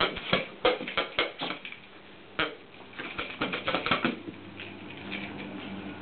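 Dog shaking a plush marmot toy: a rapid, irregular run of clicks and knocks for about four seconds, with a short pause partway through, then quieter.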